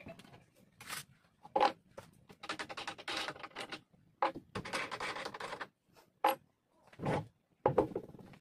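Handling noises as a sticker-cutting machine and its material are moved about by hand: a run of scrapes and rustles, two longer scraping stretches of about a second each, and a few sharp knocks.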